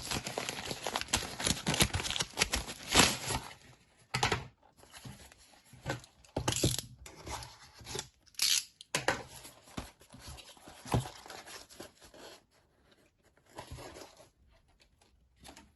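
A parcel's packaging being torn open, with a dense run of ripping and crinkling for the first few seconds. Then come shorter, separate rustles and scrapes as the packing is pulled apart.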